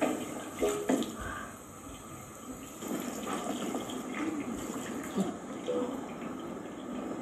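Water running from a tap into a washroom sink, splashing steadily, with a few knocks in the first second.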